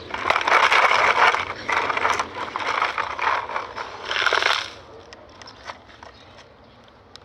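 A scraping, rattling noise full of small clicks for about four and a half seconds, then dropping away to quiet.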